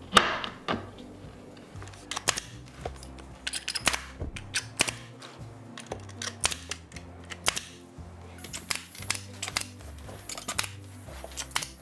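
Air-powered pneumatic stapler firing staples into wooden base trim: sharp snaps in quick runs, over background music.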